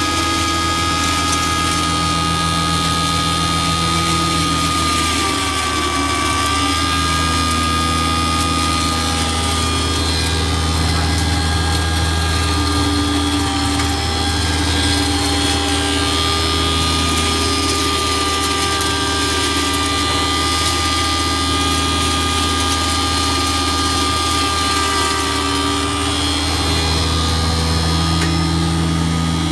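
Grain pulverizer mill running at a steady speed: a constant motor hum with several held tones and a high whine above it.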